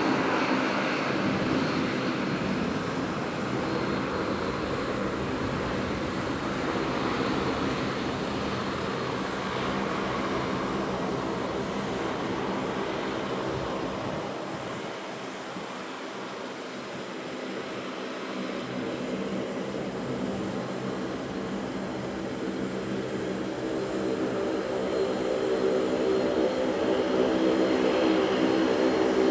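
Turbofan engines of a Bombardier CRJ regional jet at takeoff power on its takeoff run and climb-out. A steady rushing roar carries a droning hum of several tones; it eases a little around the middle and swells louder again near the end.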